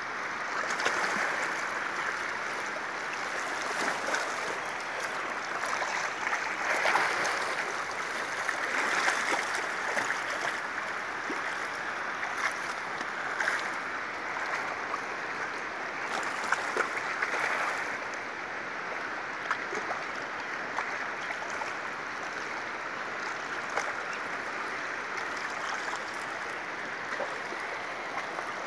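Fast-flowing river water rushing steadily over rocks, with a few brief louder splashes now and then.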